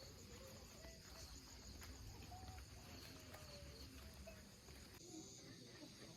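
Near silence with faint, steady high-pitched insect chirring and a low rumble of outdoor ambience.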